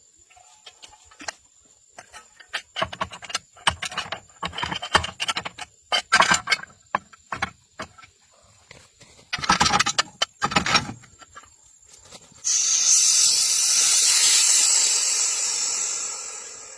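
Irregular knocks, clanks and rattles of metal parts and tools being handled, then a steady hiss that starts suddenly, holds for about four seconds and fades away near the end.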